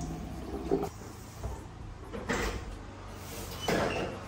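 Water from a kitchen tap running into a stainless steel sink stops about a second in. A few knocks follow, then a door is opened by its handle near the end with a louder clunk and a short squeak.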